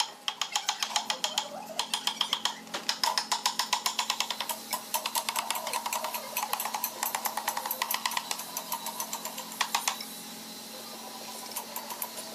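Rapid light hammer taps on wood, roughly six to eight a second with a slight metallic ring, in runs with short pauses, stopping about ten seconds in.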